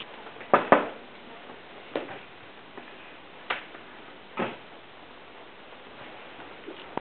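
Scattered wooden knocks and clunks from a tall wooden cupboard as its door is opened and a boy climbs inside: two sharp knocks close together just after the start, then three single knocks spread over the next four seconds.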